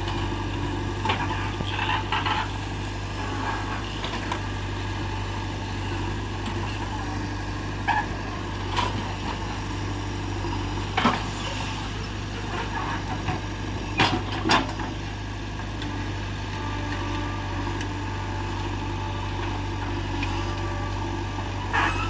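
JCB 3DX backhoe loader's diesel engine running steadily under load as the backhoe digs and dumps soil. A few short sharp knocks come through it, two close together about fourteen seconds in.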